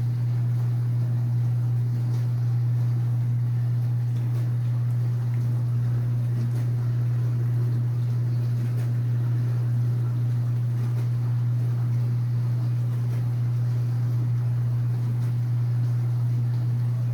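Kitchen appliance motor running with a steady, even low hum that does not change in pitch or level.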